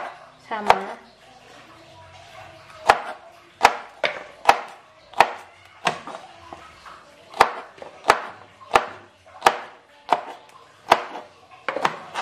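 Kitchen knife chopping vegetables: about a dozen single sharp chops, unevenly spaced, with pauses of up to two seconds between some of them.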